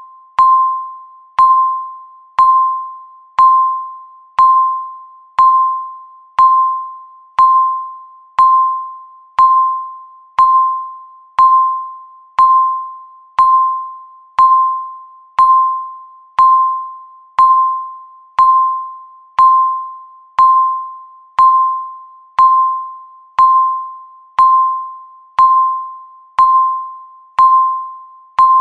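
Countdown timer beeping once a second: each beep is a single pitched electronic ping that starts sharply and fades away before the next.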